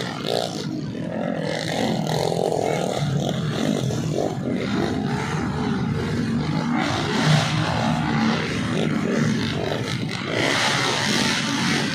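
Several dirt bike engines running and revving together, their pitch rising and falling as the bikes ride the track.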